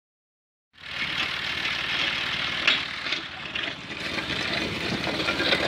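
Farm tractor engine running steadily, cutting in abruptly about a second in, with a PTO-driven post-hole auger hitched on the back.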